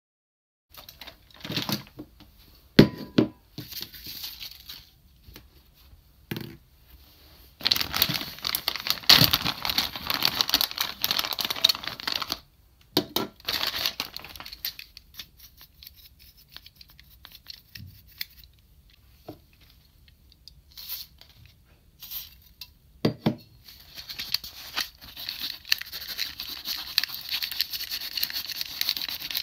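A clear plastic bag rustling and crinkling while a plastic toy train car is handled and pulled out of it, with a few sharp clicks and knocks of plastic. Near the end comes a longer stretch of kitchen paper rubbing over the toy's plastic body as it is wiped clean.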